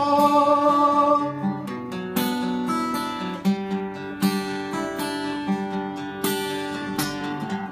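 Acoustic guitar strummed in a steady rhythm of chords, with a sung note held over the first second.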